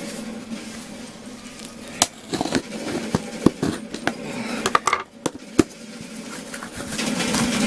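A cardboard parcel being cut open and unwrapped by hand: irregular clicks, crackles and rustling of cardboard and packing paper.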